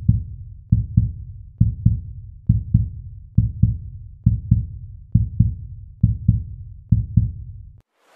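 Heartbeat sound effect: deep double thumps in a steady lub-dub rhythm, about one pair every second, stopping shortly before the end.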